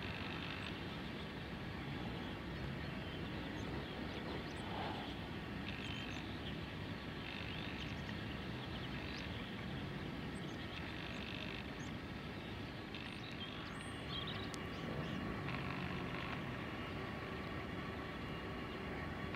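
Cessna Citation 525A business jet's twin turbofans running at low power as it rolls along the runway after landing, heard from a distance as a faint steady whine under the outdoor noise.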